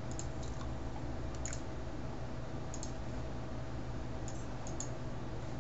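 A few scattered, faint computer clicks, most likely from a mouse, over a steady low hum.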